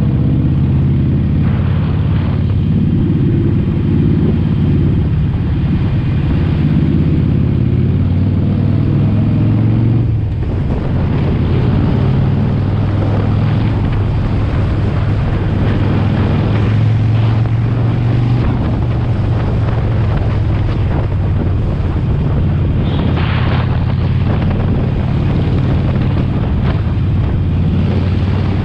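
Harley-Davidson Sportster Forty-Eight's 1200 cc V-twin running while riding, with wind rush on the microphone. The engine note dips and changes briefly about ten seconds in.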